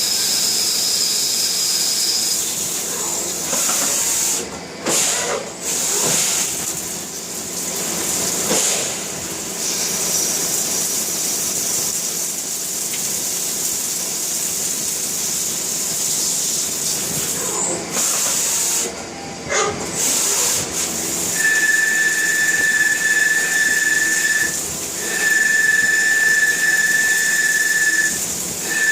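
Jyoti DX200 CNC machine cutting a bearing housing: a steady hiss with a high whine over it. About two-thirds of the way through, a strong high steady tone sets in, broken twice by short gaps.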